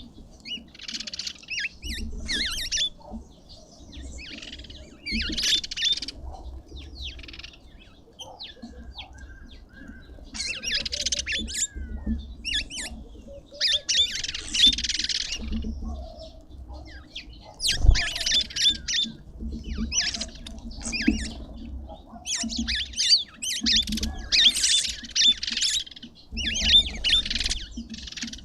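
Several small birds chirping and squawking in short bursts of high chatter, over and over, with one sharp knock about two-thirds of the way through.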